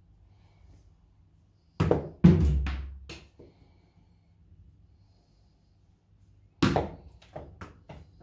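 Tape-wrapped tennis ball thrown down a hallway: a pair of thuds as it strikes, then a few lighter bounces. About five seconds later a second throw lands with a thud and a short run of quicker, fading bounces.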